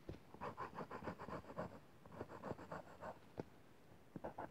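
Black coloured pencil scratching on paper in quick, short back-and-forth strokes as it shades a drawing. The strokes stop for about a second near the end.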